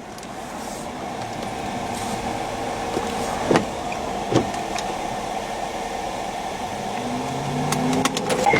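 Vehicle in motion heard from inside the cabin: a steady rushing of road and wind noise that grows louder throughout, with two sharp knocks a second apart near the middle.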